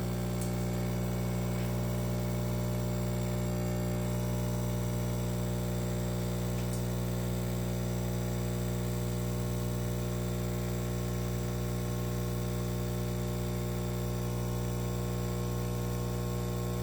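Philips L'OR Barista pod coffee machine's pump humming steadily while it brews a cup.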